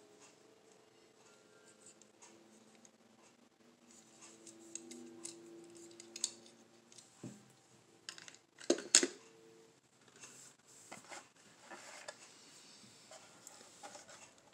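Light clicks and scrapes of a die-cast toy car being handled against a clear plastic compartment storage case, with a sharp plastic clack about nine seconds in as the car is set into a compartment. Near the end comes the rustle of a carded blister pack being picked up.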